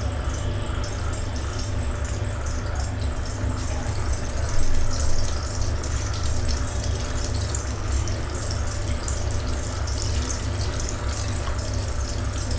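Marinated chicken pieces deep-frying in hot oil in a kadhai: steady sizzling and bubbling, with a brief louder surge about four and a half seconds in.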